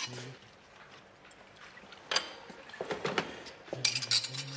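Darts being pulled from a dartboard and handled, giving a few short clicks and clinks.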